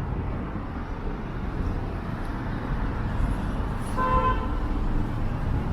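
Steady road traffic rumble, with a single short car horn toot about four seconds in.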